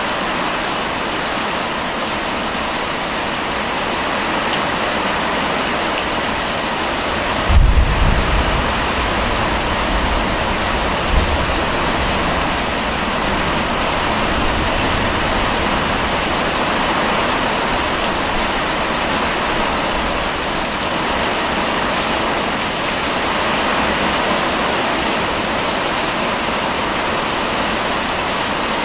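Heavy rain pouring down steadily during a thunderstorm. A low rumble of thunder starts suddenly about seven seconds in and fades over a few seconds.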